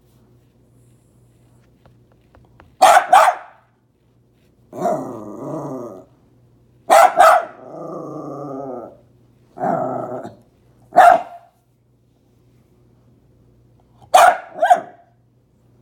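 Dogs barking and growling at each other: sharp barks, mostly in pairs, alternating with drawn-out growls.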